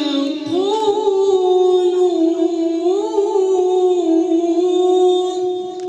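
A man's voice in melodic Quran recitation (tajweed), drawing out one long held vowel with a few ornamental turns in pitch, fading away near the end.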